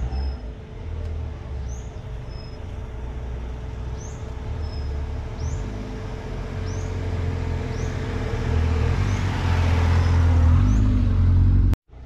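A small hatchback car driving slowly along a dirt track toward the listener, its engine rumble and tyre noise growing steadily louder, loudest near the end, then cutting off suddenly.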